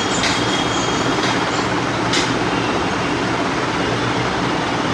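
Steady background noise with no speech, and short rustles of cotton batik cloth being handled and folded, about a quarter second in and again about two seconds in.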